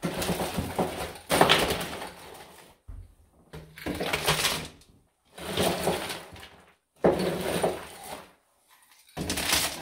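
Ice cubes scooped from a plastic bag with a clear jug and poured into a tall graduated cylinder, clattering and rattling in about six bursts of roughly a second each.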